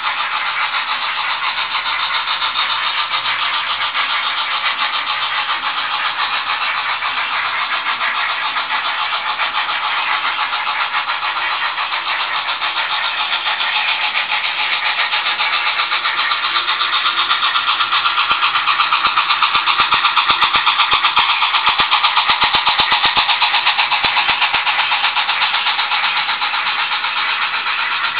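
Model steam locomotive sound: fast, steady chuffing with a thin, bass-less tone as from a small speaker, louder through the middle of the passage.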